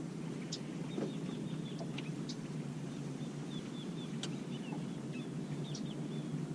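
A bird calls a series of short, high chirps over a steady low hum of outdoor background noise. Small sharp clicks come now and then as fishing tackle is handled while a soft plastic worm is threaded onto a drop-shot hook.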